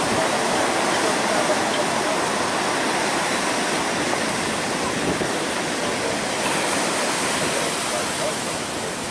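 Steady rushing noise of hurricane wind and heavy surf on the ocean beach.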